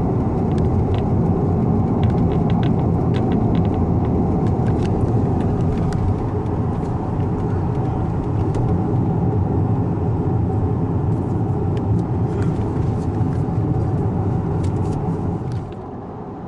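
Steady tyre and road noise of a Tesla electric car driving along a road, a low rumble with a few faint ticks, easing off a little near the end.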